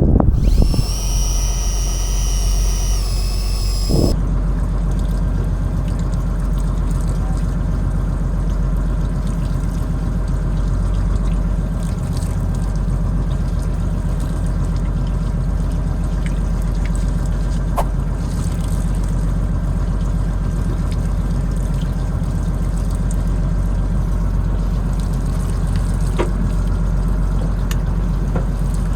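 Boat engine running steadily with an even low hum. In the first few seconds a set of high tones sounds over it, stepping in pitch once before stopping.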